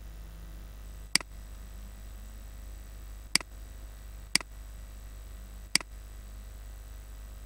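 Four sharp computer mouse clicks at uneven intervals over a steady low electrical hum.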